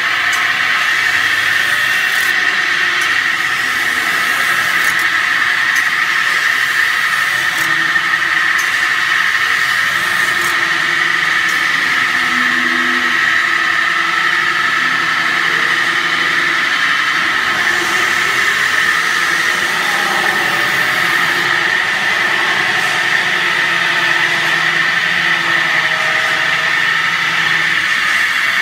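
CNC metal spinning lathe forming a sheet-metal blank over a mandrel: a steady, loud, high-pitched squeal from the roller working the spinning metal, over the running noise of the machine. A few lower tones waver about halfway through.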